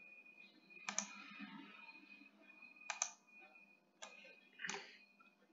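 Computer mouse clicking, faint, about four separate clicks spaced a second or so apart.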